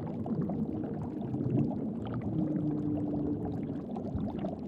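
Bubbling, sloshing water, with one short low steady tone held for about a second near the middle.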